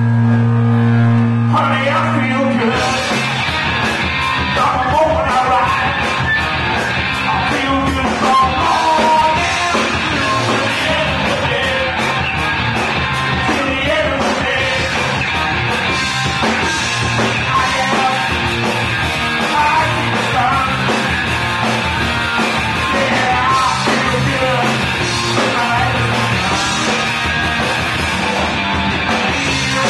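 Live rock band playing: a held electric guitar chord rings out, then the drums and full band come in about two seconds in, with singing over driving electric guitars and bass.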